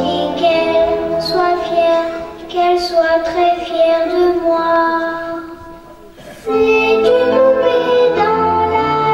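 A recorded song with a high singing voice over instrumental backing, playing as dance accompaniment. About five seconds in it dies down to a brief quiet stretch, then comes back in full, suddenly, about a second and a half later.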